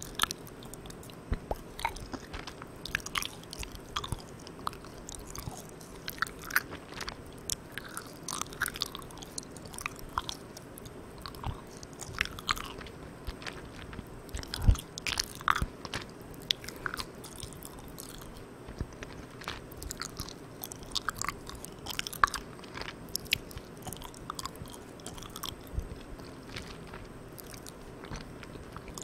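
Close-miked chewing of Malang Cow soft, sticky chewy candy: irregular sticky mouth clicks and smacks, over a steady hiss from a microphone run at full gain.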